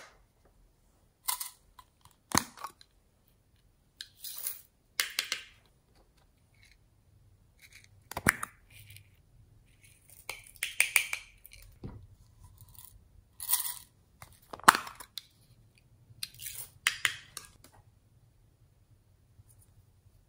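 Small plastic containers of slime toppings being handled, opened and shaken out over the slime: a string of separate short crackles and rustles, with a few sharp clicks, the sharpest about 8 and 15 seconds in.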